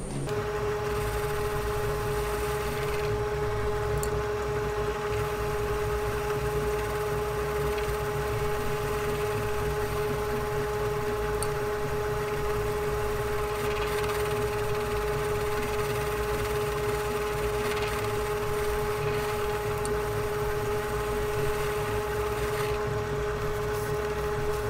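Metal lathe running steadily while a finishing tool takes a cut on bar stock held in the chuck: an even motor and gear whine over a low rumble.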